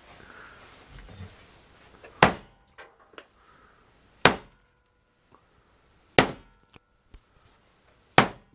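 Meat cleaver chopping down hard on a wooden cutting board: four loud whacks about two seconds apart, with a few lighter knocks between them.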